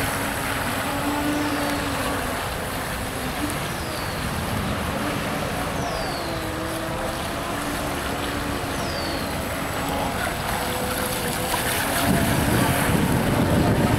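Small electric outrunner motor of an RC hydrofoil model boat whining as it runs across the water, its pitch shifting with the throttle, over a steady wash of water and spray. A louder low rush comes in near the end.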